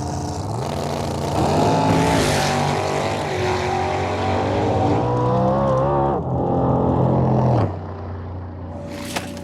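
Drag race car engines at full throttle down the strip, their pitch climbing, dropping back at a gear change and climbing again, then cutting off sharply near the end as the cars lift off.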